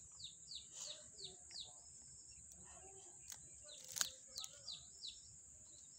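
Faint bird chirping: runs of short falling chirps, about three a second, at the start and again near the end, over a steady high-pitched whine. A single sharp click about four seconds in.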